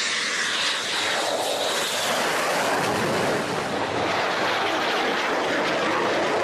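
Military jet aircraft flying low, a loud, steady jet engine noise.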